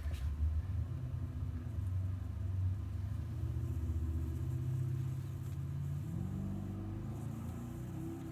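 Low steady hum of a microwave oven running off a sine-wave inverter that is drawing over 100 amps from the battery bank. About six seconds in, a tone starts climbing in pitch.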